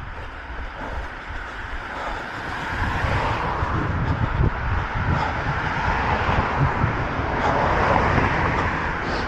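Road traffic passing: tyre and engine noise that swells over several seconds, peaking near the end, with wind rumbling on the microphone.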